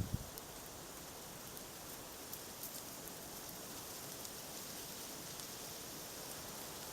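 Campfire giving a steady soft hiss with a few faint crackles, the sound of wood burning and meat cooking over the flames.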